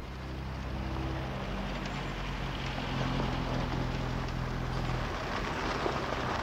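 Lotus Esprit Turbo's turbocharged four-cylinder engine running steadily at low speed as the car drives slowly over a snowy street.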